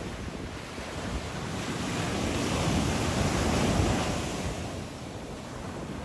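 Surf on a sandy beach: a wave breaks and washes up the shore, swelling to a peak about halfway through and then receding, with wind rumbling on the microphone.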